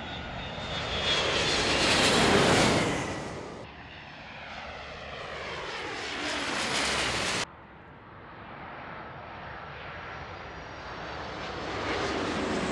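Jet airliners passing low overhead on final approach with landing gear down. Engine noise swells to a peak a couple of seconds in, then falls away with a descending whine. It cuts off suddenly about halfway through, and the engines of the next approaching airliner grow steadily louder toward the end.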